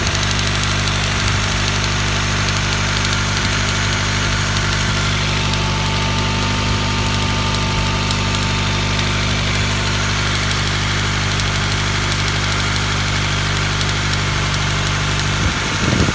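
Honda Prelude's H23 2.3-litre four-cylinder engine idling steadily with a light, regular ticking over the hum. A brief louder, unsteady rumble comes near the end.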